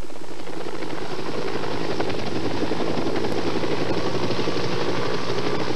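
Medical helicopter running close by: a steady, rapid rotor chop over a constant engine hum.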